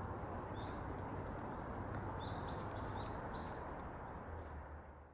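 Small birds calling over steady background noise: a few short, high chirps, then three quick arched call notes between about two and a half and three and a half seconds in. The sound fades out at the end.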